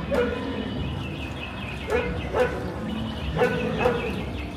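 A recorded dog barking in the ride's farm-scene soundtrack, five short barks that come mostly in pairs, over the steady low rumble of the boat ride.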